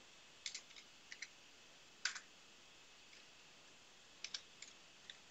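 Faint, scattered keystrokes on a computer keyboard, a few taps at a time with pauses between.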